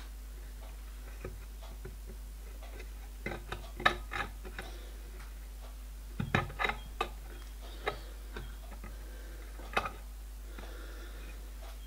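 Small metal clicks and taps as little steel bolts and rods are fitted by hand into model locomotive frames, coming in two short clusters and a few single clicks over a faint steady hum.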